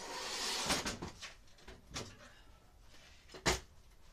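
Handling noise: a brief rustling hiss, then a few scattered clicks and knocks of hard objects being moved, the loudest about three and a half seconds in.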